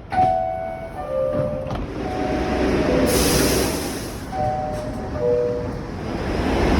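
Subway car door chime, a two-note descending ding-dong heard three times: the warning that the doors are about to close. A short burst of air hiss comes about three seconds in, over the steady rumble of the train.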